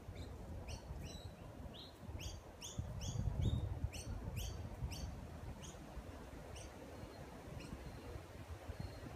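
A small bird chirping over and over, quick rising notes about two to three a second that fade out near the end, over a low rumble that swells a few seconds in.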